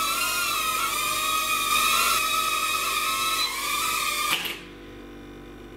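High whine of a micro indoor RC aircraft's small electric motors, several tones wavering up and down with the throttle, cutting off suddenly about four seconds in.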